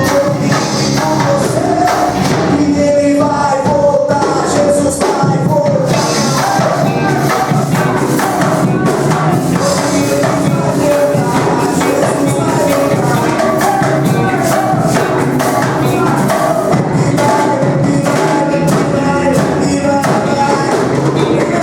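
Band music with a tambourine shaking steadily over drums.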